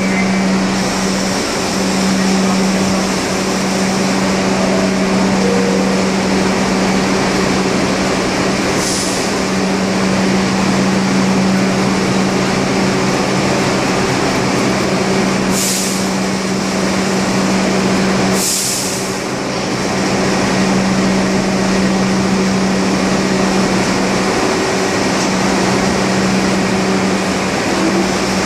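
New York City Subway R62 train standing in the station: a steady electrical hum from the idling cars, broken by three short hisses of released air.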